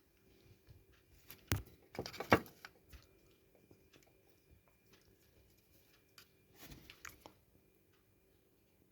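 Clicks and knocks of an opened step-down converter's plastic casing and wiring being handled, loudest about a second and a half to two and a half seconds in, with a few more around seven seconds.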